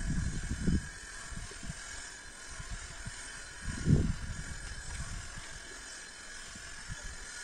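Garden hoe chopping into the soil between plant rows: dull low thuds near the start and a louder one about four seconds in.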